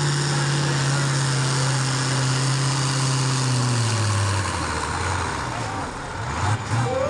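Diesel farm stock pulling tractor running flat out under load as it pulls the sled, with a steady engine note. About four seconds in the pitch drops and the engine sound falls away as it is pulled down and the run ends.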